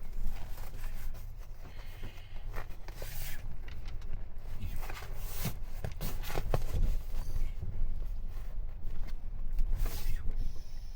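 Fabric seat cover rustling and scraping as it is pulled and tugged into place over a truck seat, with irregular knocks and bumps from the handling.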